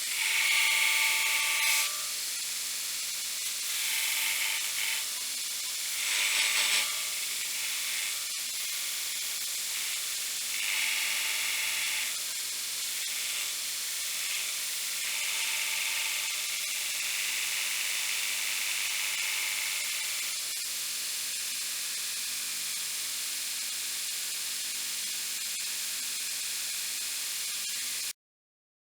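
A machine running with a steady hiss and a low hum. It gets louder and higher-pitched in several stretches lasting one to five seconds, then cuts off suddenly near the end.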